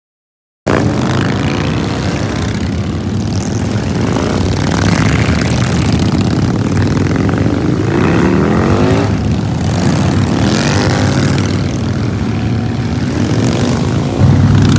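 Motorcycle engines running after a brief silence, with a rising rev about eight seconds in and a jump in loudness near the end.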